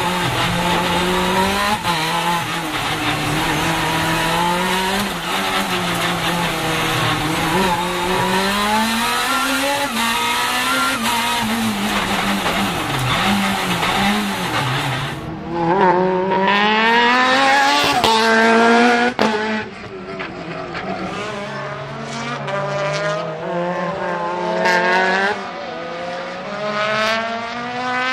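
The engine of a supercharged Lotus Exige race car is worked hard on track, its pitch rising and falling through corners, with tyres squealing at times. About halfway the recording changes abruptly. The engine is then heard revving up in repeated rising sweeps, each cut short by a gear shift.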